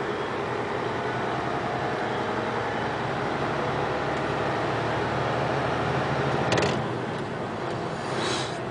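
Engine and road noise of a moving vehicle, heard from on board: a steady hum. A sharp, short clatter comes about six and a half seconds in, and a brief rushing swell near the end.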